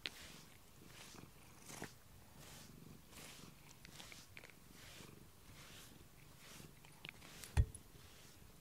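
Domestic cat purring close to the microphone, a soft rasp that swells and fades in even pulses about every half second or so with its breathing. One dull thump near the end is the loudest sound.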